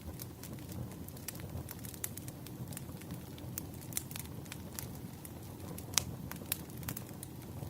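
Wood campfire burning, crackling with irregular sharp pops over a low steady rumble of the flames; the loudest pop comes about six seconds in.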